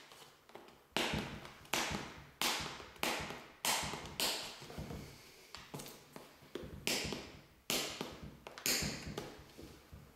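About a dozen sharp taps and clacks from handling the boxed mechanical keyboard, irregularly spaced, each dying away quickly.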